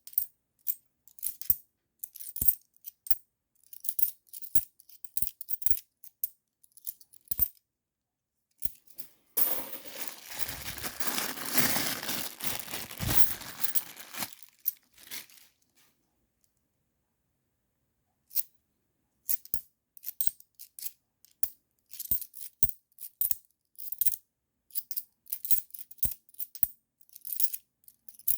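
50p coins clicking against one another as they are sorted by hand, in scattered light clinks. About nine seconds in comes a denser stretch of rustling and jingling lasting about five seconds, then a brief silence before the clinks resume.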